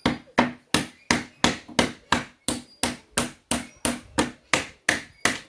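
Hammer driving a wooden wedge into the gap between a pallet deck board and its frame: sharp, even blows about three a second, forcing the board away from its nails.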